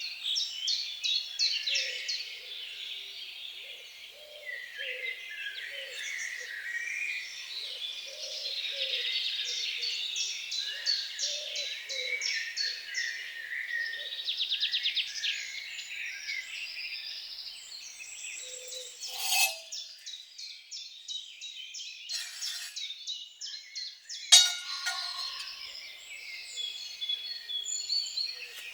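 Several songbirds singing at once, with dense overlapping chirps and trills, under a run of short low notes repeated about twice a second. Sharp clicks come about two-thirds of the way in, and the loudest of them falls near the end.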